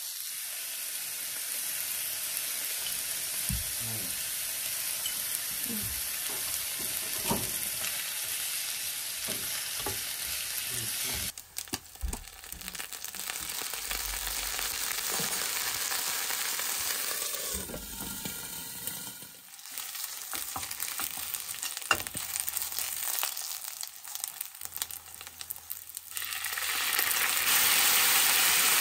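Food sizzling in a frying pan while it is stirred, with a few sharp knocks of a utensil against the pan. The sizzle grows louder near the end.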